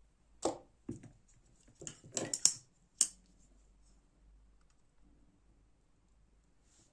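Folding knife being handled, with a run of sharp clicks and taps over about the first three seconds, the loudest near the end of the run, then quiet.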